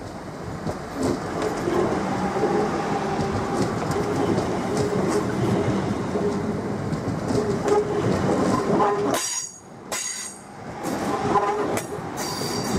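Train moving along the track, its wheels clicking over rail joints and squealing. The sound drops away sharply twice, about nine and ten seconds in.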